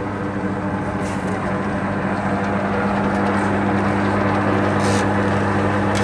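Steelmaster SM-L20N sheet-metal lockseamer running: its electric motor and geared forming rolls hum steadily as a thin sheet feeds through the rolls. The sound grows a little louder about halfway through.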